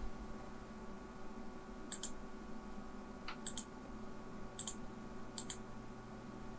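Computer mouse buttons clicking, four quick press-and-release clicks spaced a second or so apart with a fainter tick between, over a faint steady hum.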